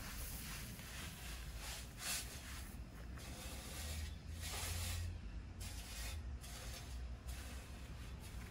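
Crushed stone gravel being shovelled and spread: several short scraping, pouring hisses, the longest about halfway through, over a low steady rumble.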